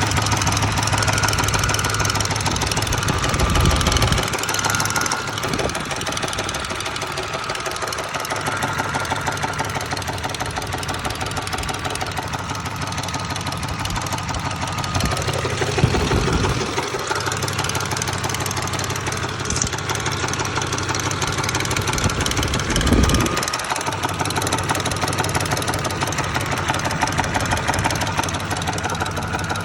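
Engine being cranked over by the starter in a steady rhythm without catching: an engine that won't start. A few short low thumps break in along the way.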